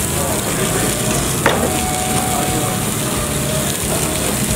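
Meat sizzling on the mesh of a tabletop yakiniku grill: a steady hiss, with a single sharp click about a second and a half in.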